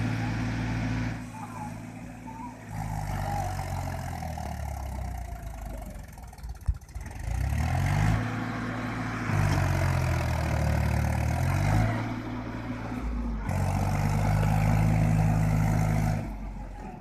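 Diesel tractor engine running under heavy load, revving up and easing off several times as it strains to haul a sand-laden trailer through soft sand. The revs drop briefly about six and a half and thirteen and a half seconds in, with a single sharp knock near the first drop.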